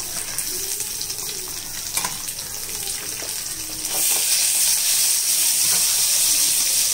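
Shallots and lentils frying in oil in a kadai with a steady sizzle, a spoon stirring and scraping now and then. About four seconds in, the sizzle turns louder as chopped tomatoes go into the hot oil.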